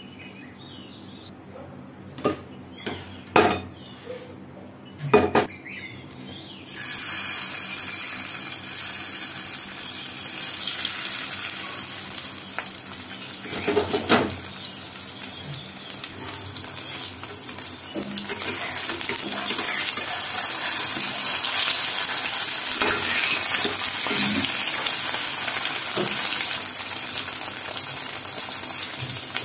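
A few sharp knocks against a frying pan, then, about seven seconds in, marinated paneer cubes start sizzling as they shallow-fry in hot oil. The sizzle runs on steadily, with another knock of the pan about halfway through.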